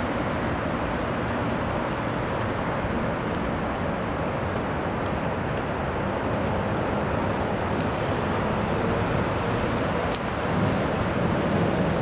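Steady rush of traffic noise from the elevated expressways overhead, a continuous drone with no distinct events, growing a little louder near the end.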